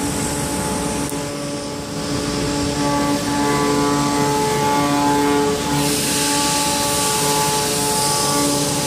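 Gantry CNC router running, with a steady machine whine of several held tones; about six seconds in a louder hiss joins it.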